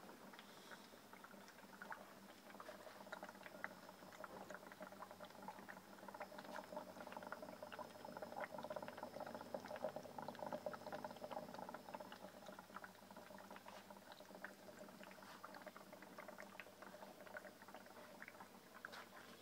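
Water in a stainless steel pot heating on a gasoline-vapour burner, faintly crackling and ticking with small bubbles as it comes toward the boil. The crackle grows a little louder around the middle, then eases off.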